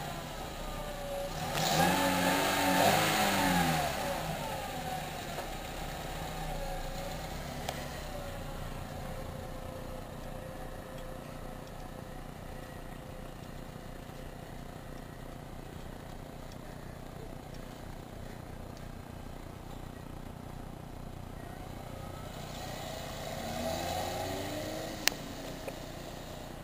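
Volkswagen Golf's engine revving up about two seconds in, then running steadily as the car pulls away and drives off; it revs again near the end, with a single sharp click.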